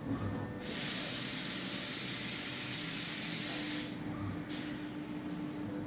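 A steady hiss from a DMG DMF 300 Linear vertical machining centre, lasting about three seconds and cutting off sharply, followed by a second short hiss, over a faint steady machine hum.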